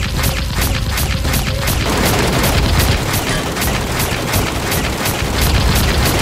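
Dubbed automatic gunfire sound effect: rapid, evenly spaced shots in a continuous burst, over a dense low rumble.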